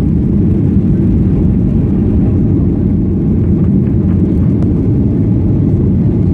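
Cabin noise of a Boeing 737-800 in its initial climb: the CFM56-7B engines and the airflow past the fuselage make a loud, steady low rumble.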